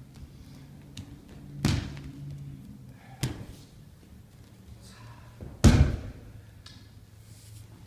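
Three heavy thuds on the dojo mat, the first about a second and a half in, the last and loudest near six seconds in, as bodies or feet strike the mat during aikido practice, over a low steady hum.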